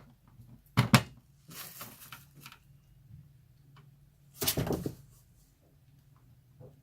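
Knocks and clunks of a plastic ultrasonic humidifier being handled and set up: two sharp knocks about a second in, then a louder cluster of clunks about four and a half seconds in.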